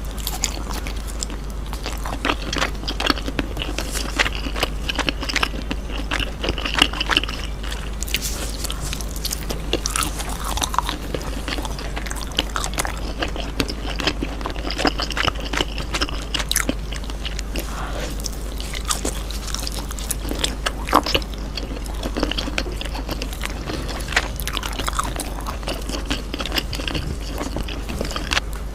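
Mouth sounds of eating grilled cheese: continuous chewing with frequent bites and small crunches.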